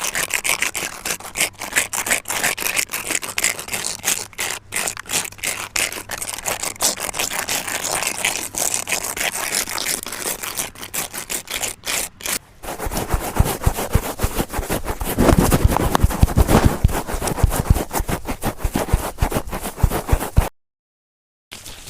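ASMR trigger sounds: fast scratching and scraping on a surface, then, about two-thirds of the way through, a run of quick, deeper tapping and knocking. Both stop suddenly about a second before the end.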